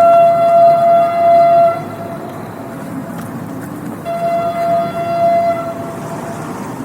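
Train horn blowing two long blasts of one steady note, the second starting about four seconds in, over the rumble of the passing train. The first blast starts abruptly at an edit.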